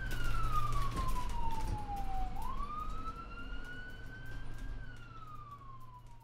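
Ambulance siren in wail mode, one slow rise-and-fall tone. It falls for about two seconds, climbs back over about two more, then falls again as it fades out near the end, over a low steady hum.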